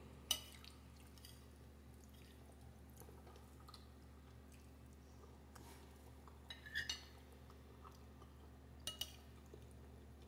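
Quiet room with a faint steady hum, broken by a few light clinks of cutlery and tableware while eating: one just after the start, a small cluster about seven seconds in, and two more near the end.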